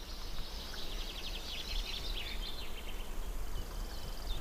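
Summer countryside ambience: rapid high-pitched chirping of small wildlife, densest in the first three seconds, over a steady low rumble.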